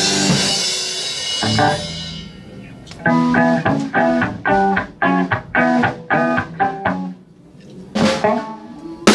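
Rock band in rehearsal: a cymbal crash over a held chord rings out and fades over about two seconds, then an electric guitar plays a riff of short, separated notes, about two a second, with another hit near the end.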